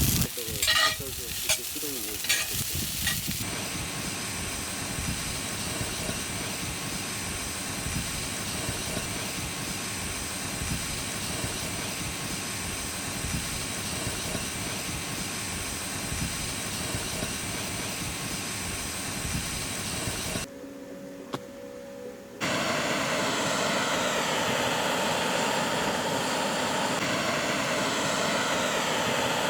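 Food sizzling as it fries in a pan, a steady hiss with a few sharp clicks of utensils in the first seconds. It cuts to a quieter stretch about two-thirds of the way through, then the sizzling comes back louder.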